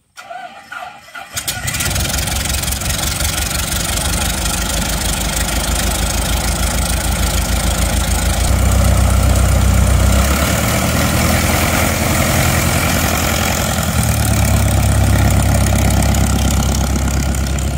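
Light aircraft's piston engine cranking and catching about a second and a half in, then running steadily with a low throb. Its speed picks up for a couple of seconds about eight seconds in and again later.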